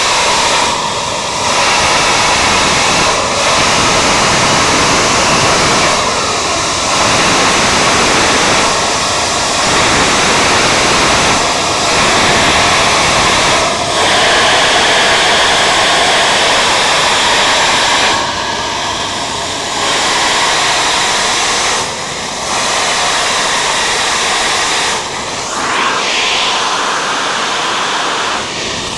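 Gas and crude-oil vapour jetting under pressure from a leaking buried oil pipeline through a crater in the ground: a loud, steady rushing hiss, dipping briefly in level every few seconds.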